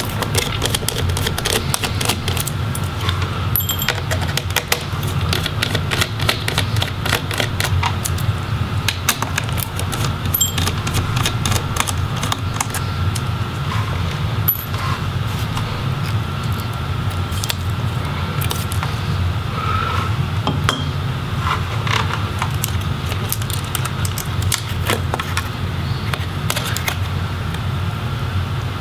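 Scattered light clicks and small rattles of a laptop's parts and cable connectors being handled, most frequent in the first dozen seconds, over a steady low hum.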